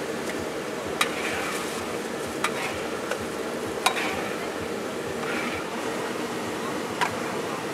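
Dough pieces frying in a wok of hot oil while a metal ladle stirs them. The ladle gives about five sharp clicks against the wok, the loudest about four seconds in.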